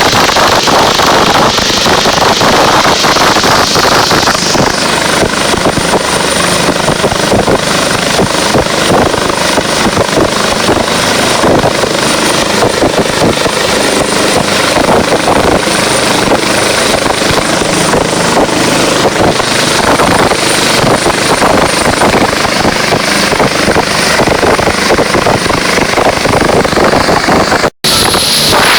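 Helicopter running close by, loud and steady, with rapid rotor chop and a thin high whine that comes in a few seconds in. The sound cuts out briefly near the end.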